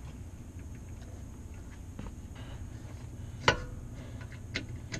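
Faint metal-on-metal handling while a rear shock absorber is fitted to its lower mount, with one sharp metallic clink and a brief ring about three and a half seconds in, over a low steady background.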